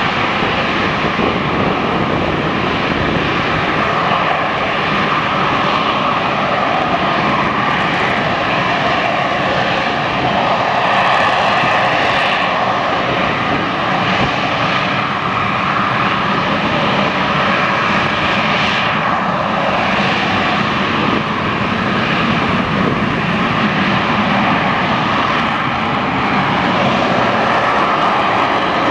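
AV-8B Harrier II jump jet's Pegasus turbofan running loud and steady on vectored thrust as the jet hovers and flies slowly, a continuous jet noise that swells slightly now and then.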